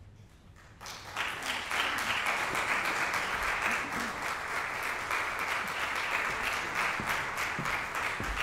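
Audience applause breaking out about a second in after a brief hush, then dense, steady clapping.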